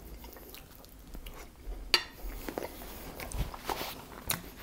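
Close-miked eating sounds of a person sucking sour cream off a fork: wet lip smacks and chewing, with sharp mouth clicks about two seconds in and just after four seconds.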